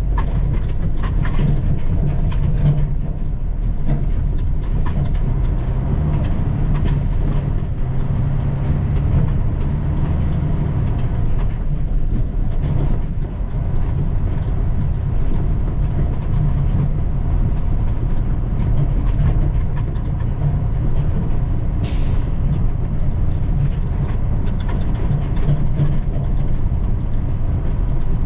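Cummins diesel engine of a 2010 International 7600 log truck running steadily under load while driving, with rattles and knocks from the truck throughout. About two-thirds of the way through, a brief burst of air hiss cuts in.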